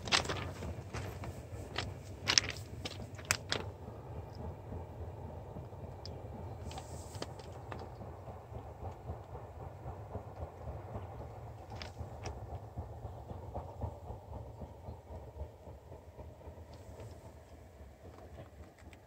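Diesel-electric work train with rock wagons on the move: a steady low rumble of locomotive and wheels on rail, with several sharp clicks in the first few seconds, the rumble slowly fading as the train draws away.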